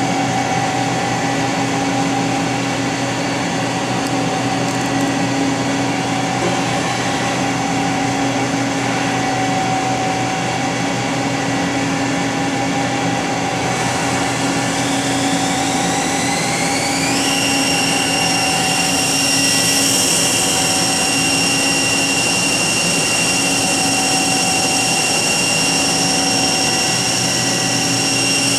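Hardinge GT27 CNC lathe running with a steady machine hum. A little past halfway a high whine climbs in pitch for about three seconds as the spindle drive speeds up, then holds steady at the higher pitch.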